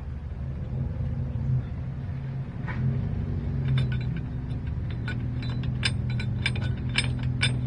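Slide-hammer axle puller working a 1955–57 Chevy rear axle shaft loose: from about halfway in, a run of sharp metallic knocks, roughly two a second. A steady low hum runs underneath.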